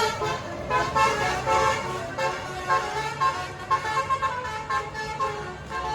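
A tour bus's 'telolet basuri' multi-tone air horn playing a melody as a quick run of changing notes, over the low hum of the bus engine.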